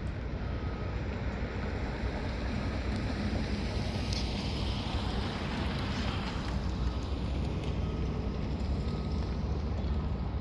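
Steady low rumble of outdoor traffic with wind on the microphone; a rushing hiss swells around the middle and drops away about two-thirds of the way through, like a vehicle passing.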